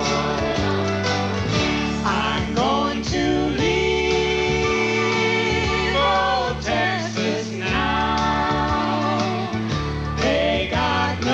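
A man and a woman singing a slow country-style song at microphones, backed by guitar, with long held notes.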